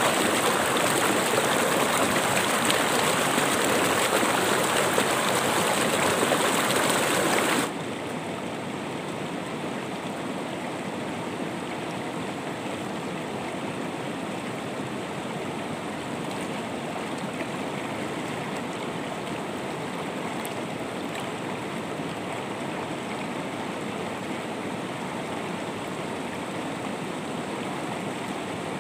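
River water rushing over rocks in a shallow rapid: a steady, loud hiss. About eight seconds in it cuts abruptly to a quieter, duller flow of calmer water.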